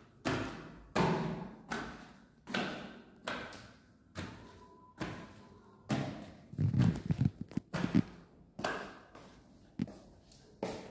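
Footsteps going down tiled stairs and across a tiled floor, a sharp thud about every three-quarters of a second, each with a short echo. A bit past halfway comes a quick run of heavier thumps.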